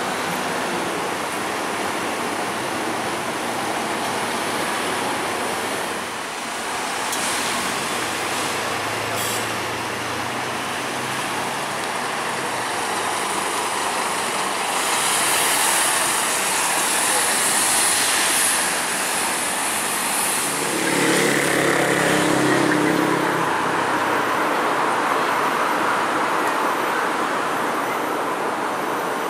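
Scania K230UB single-deck diesel city bus driving past at close range, its engine running with tyre and road hiss over steady traffic noise. A louder hiss swells for a few seconds about halfway through, and a deeper engine note comes up a few seconds later.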